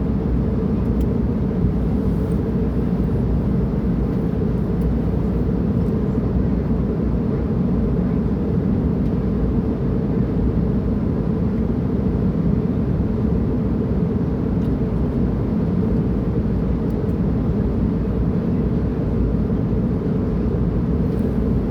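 Steady low rumble and rush of a jet airliner's passenger cabin in flight, descending toward landing.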